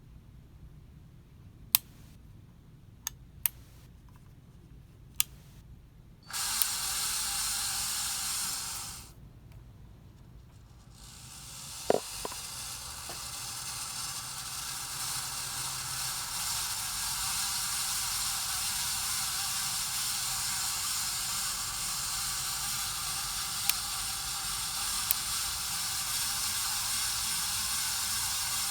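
Casablanca Spirit of Saturn ceiling fan with bad bearings: a few sharp clicks, then a hissing, grinding bearing noise that cuts in for a few seconds and stops. The noise comes back, builds up over several seconds and holds steady, the sound of worn bearings.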